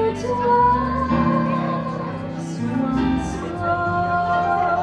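A woman singing a slow melody with held, gliding notes, accompanied by keyboard and guitar from a small live band.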